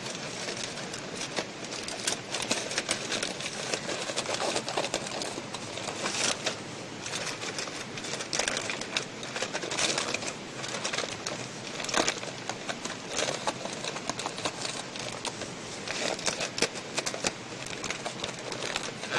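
Aluminium foil crinkling and rustling as it is folded by hand into a sealed packet, an irregular stream of small crackles.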